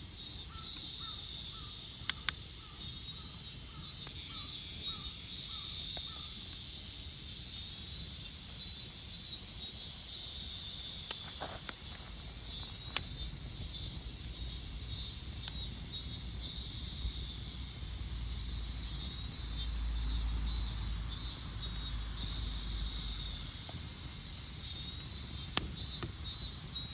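A chorus of summer insects makes a continuous, high, pulsing buzz. For the first six seconds or so a softer note repeats about twice a second. A few sharp clicks and a brief low rumble sound partway through.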